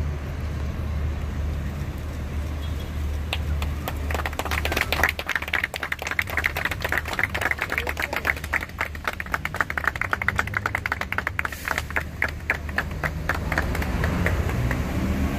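A small group clapping, starting about four seconds in and dying away near the end, over the steady low rumble of city traffic.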